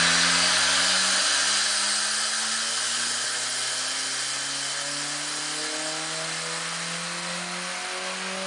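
Turbocharged car engine running on a chassis dyno, its pitch climbing slowly and steadily as it gradually gets quieter.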